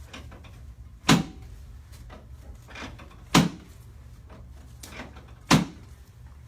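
Three sharp thumps about two seconds apart, each a short knock with a low thud, from chiropractic thrusts on the low back on the treatment table.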